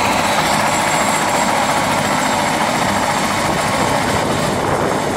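Eurocopter AS350 Écureuil helicopter running on the ground, its turbine and rotor making a steady noise with a thin high whine over it.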